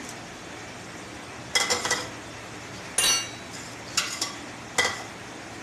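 Sharp, ringing metallic clanks of a utensil or lid against an aluminium cooking pot, four of them roughly a second apart, the first followed by quick rattles, over a steady hiss.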